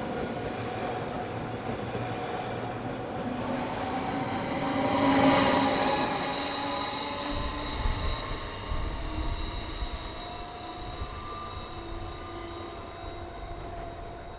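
Train moving through a station, its wheels squealing on the rails with steady high ringing tones over a rolling rumble. It is loudest about five seconds in and then fades away.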